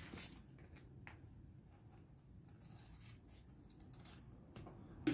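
Scissors trimming the edges of a panel of clear plastic sheeting and synthetic patent leather: faint, scattered snips with the light rustle of the plastic.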